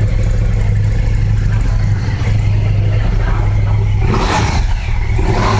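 KTM 1290 Super Duke GT's 1301 cc V-twin idling steadily through its unmodified stock exhaust. A brief throttle blip comes a little over four seconds in.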